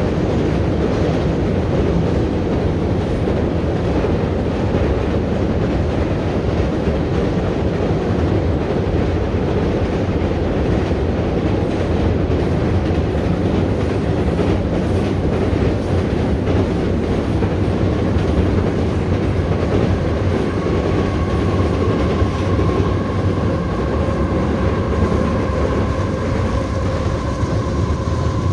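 Double-stacked container freight train crossing a high steel trestle bridge overhead, a loud steady rumble of the wagons running over the steel spans. About two-thirds of the way through, a thin steady high tone joins it.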